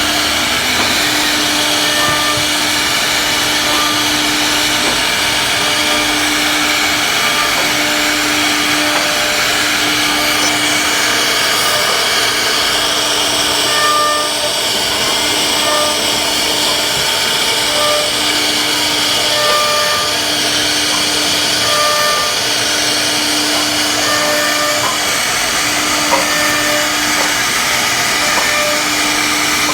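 CNC router spindle running and cutting wood, a steady loud hiss and whine, with a lower hum that stops and starts every second or two.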